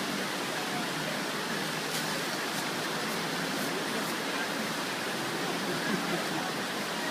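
Steady rush of river water, an even hiss with no letup, with a few faint ticks about two to four seconds in.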